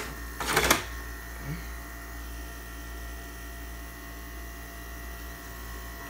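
RCA window air conditioner running with a steady hum and a fast low pulsing under it. About half a second in there is a short clatter.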